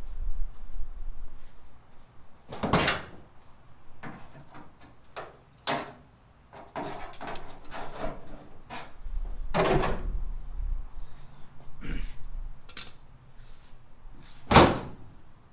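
A series of separate knocks and clunks from hands-on work on a car's hood, the loudest a sharp knock near the end.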